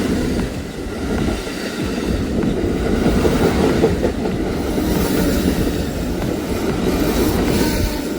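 Amtrak passenger train rolling past on the rails, a steady rumble of wheels on track with no horn sounding.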